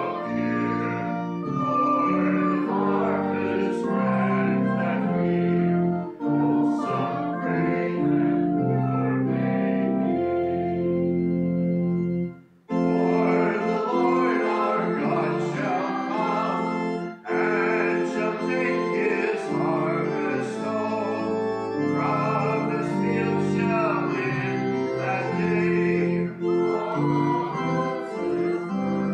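Organ playing a hymn in held chords, with a congregation singing along. There is a brief pause about twelve seconds in, between lines of the hymn.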